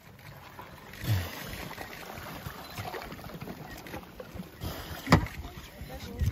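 Water and floating brash ice sloshing against the side of an inflatable Zodiac, with one sharp knock about five seconds in.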